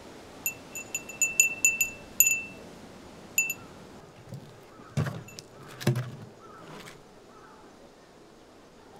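Glass furin (Japanese wind chime) tinkling, about a dozen quick, irregular, ringing pings over the first few seconds. Then a few footsteps in rubber gyosan sandals on wooden decking, softer thuds around the middle.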